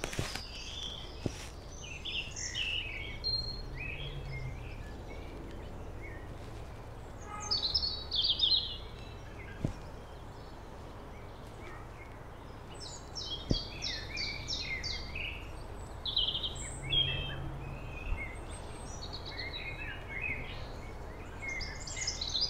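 Small birds chirping and singing on and off, with short trills, over a steady low outdoor rumble. Three faint clicks come through, a little after one second, near ten seconds and near thirteen and a half seconds.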